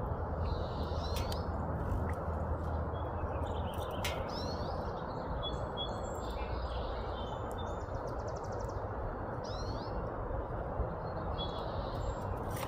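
Small wild songbirds chirping and calling repeatedly in short high notes, with a buzzy trilled call about seven seconds in, over a steady low background rumble.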